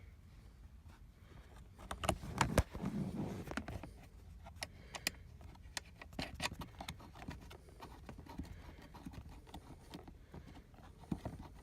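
Hands working a new seat belt buckle and its fittings into a car seat: irregular clicks, knocks and rattles of the parts, busiest and loudest about two to three seconds in, then scattered single clicks.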